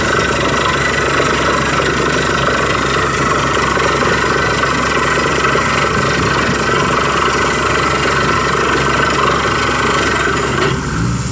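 Borewell drilling rig running steadily and loud, its engine and drilling at the bore making a dense, even din as water and cuttings are flushed up out of the hole. Near the end the hissing upper part drops away and a lower engine hum comes forward.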